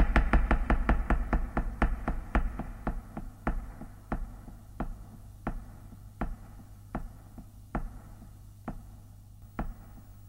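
Closing bars of a flamenco music track: sharp percussive taps that slow from about three a second to about one a second and grow fainter, over a low steady hum.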